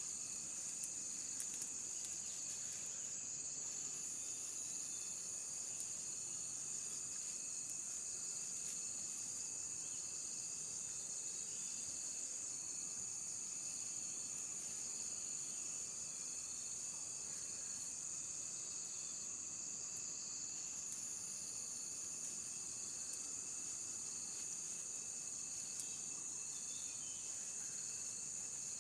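A steady chorus of insects in the forest: one continuous high trill with a weaker pulsing trill below it, and a few faint clicks.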